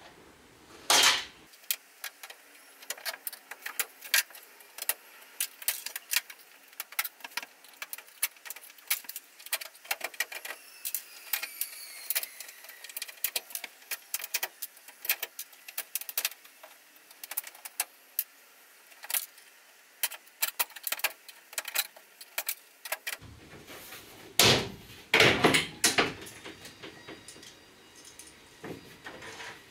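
A small screwdriver prying push-in plastic trim clips out of a van's lining board: a run of small clicks, taps and scrapes, with louder knocks about a second in and again near the end.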